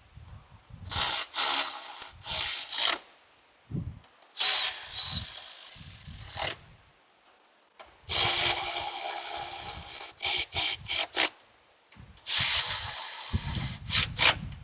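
A cordless power driver running bolts in during reassembly. It spins in several runs of one to two seconds, each followed by short quick blips as the bolts are snugged down.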